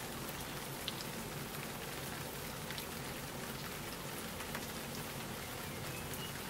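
Rain falling on garden plants: an even hiss with a few sharper single-drop ticks.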